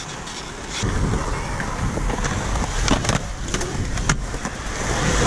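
Skateboard wheels rolling over concrete with a steady rumble, broken by several sharp clacks of the board hitting the ground, about two to four seconds in.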